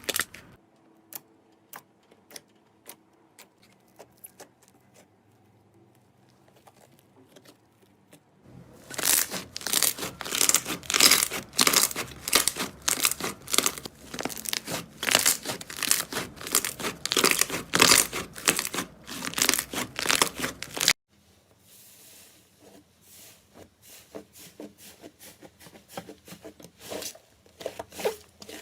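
Close-miked crackling and crunching: a few scattered clicks, then a long dense run of loud crackles that stops abruptly about two-thirds of the way through, followed by softer, sparser crackling.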